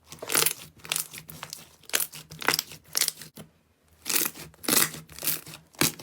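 Slime being stretched and squeezed by hand, giving a run of short sticky tearing and crinkling sounds at an uneven pace of about two a second.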